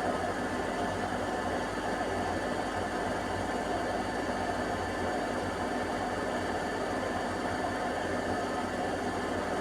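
Balay front-loading washing machine on its final spin at 1200 rpm, a steady whirring drum and motor hum that holds even throughout, spinning an unbalanced load.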